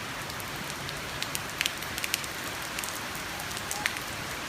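Heavy rain falling steadily, a dense hiss, with single drops tapping sharply now and then.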